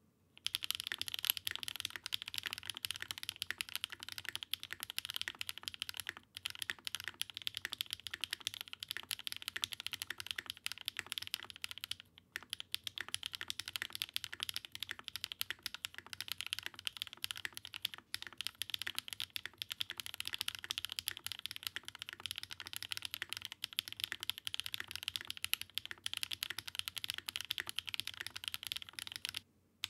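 Continuous fast typing on a Daring Run DR-70F mechanical keyboard with an aluminum plate in a stack mount, HMX Sunset Gleam linear switches, no foam and GMK Olive Noir keycaps: a dense run of key clacks with brief pauses about 6, 12 and 18 seconds in.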